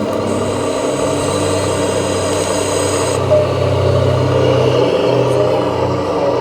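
Electric motors and gearboxes of radio-controlled construction models whirring steadily under a low drone. A high thin whine starts just after the beginning and cuts off about three seconds in.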